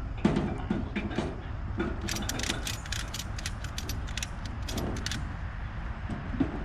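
Ratchet tie-down strap being cranked to secure a motorcycle on a trailer: a quick run of sharp ratcheting clicks for a few seconds, starting about two seconds in, over a steady low rumble.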